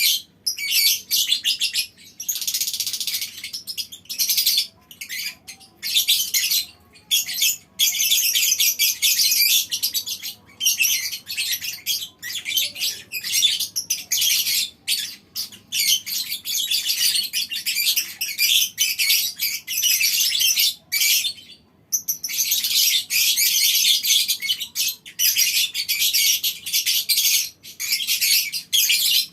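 A colony of lovebirds chattering in long, unbroken runs of rapid, shrill calls, the drawn-out 'ngekek' chatter, with only brief pauses, the longest about 22 seconds in.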